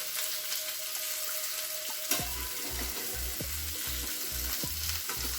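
Marinated fish pieces sizzling as they shallow-fry in coconut oil, being turned over in the pan. A sharp clink comes about two seconds in, followed by soft low thumps about twice a second.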